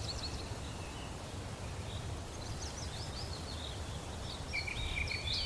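Small birds chirping in quick, short calls, growing busier in the second half, over a low steady background rumble.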